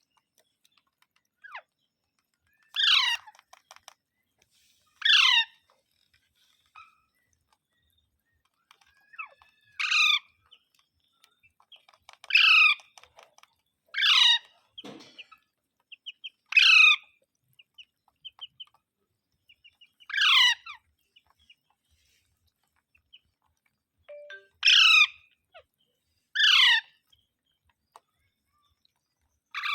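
Parrot calling: about ten loud, short calls, each sliding steeply down in pitch, a couple of seconds apart, with faint chirps and clicks between them.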